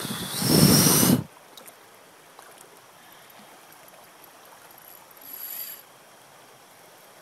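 Spinning fishing reel's drag buzzing as a hooked salmon pulls line off: a loud run of about a second at the start and a shorter, fainter one about five seconds in. The angler says the reel's tension (drag) is messed up.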